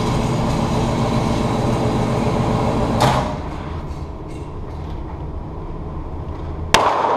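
A steady low background drone that drops in level about three seconds in, then near the end a single sharp pistol shot from a Taurus Curve .380 ACP, ringing briefly in the indoor range.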